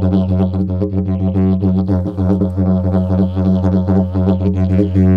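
Didgeridoo played in a steady low drone, its overtones pulsing in a fast, even rhythm.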